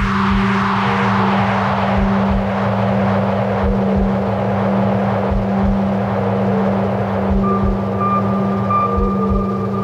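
Electronic ambient score: a steady low synth drone under deep, irregular pulsing thuds, with a falling whoosh that dies away in the first second and a high held tone coming in about seven and a half seconds in.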